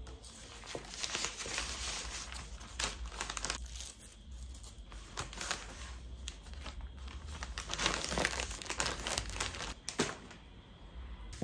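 Kraft paper mailer crinkling and rustling as it is handled, its adhesive flap peeled and pressed shut, with small taps and clicks, busiest in two spells and quieter near the end.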